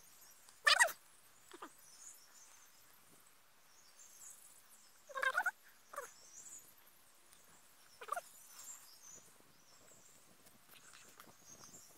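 Four short, pitched animal calls over a quiet background: one about a second in, which is the loudest, two close together around five to six seconds, and one near eight seconds.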